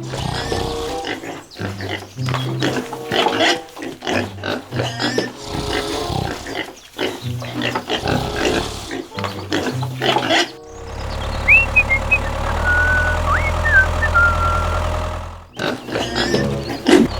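Pigs grunting and squealing over background music with a repeating low beat. A steady low hum takes over for about five seconds past the middle.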